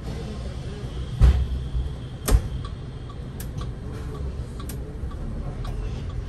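Inside a Solaris Urbino 18 IV articulated bus: the engine runs steadily, two heavy thumps come about a second and two seconds in as the doors shut, and then the turn indicator ticks evenly about twice a second.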